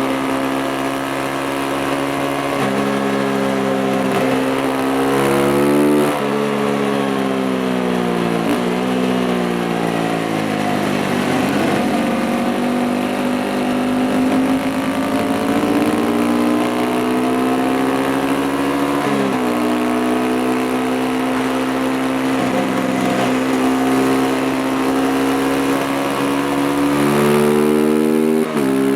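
Beta RR 125 motorcycle engine under way: it revs up and drops pitch several times in the first few seconds as it shifts up, eases off and settles around ten seconds in, holds a steady pitch, and revs hard again near the end before a sudden drop.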